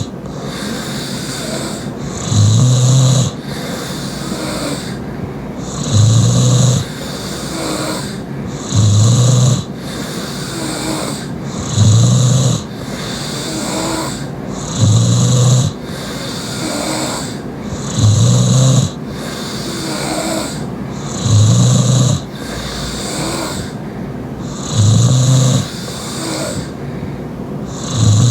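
Loud mouth-breathing snoring, one snore about every three seconds, each a low rumble lasting about a second. The sleeper is taken by the uploader to be a young woman.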